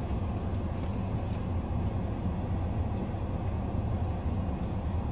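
Steady low rumble inside a car's cabin from the running vehicle.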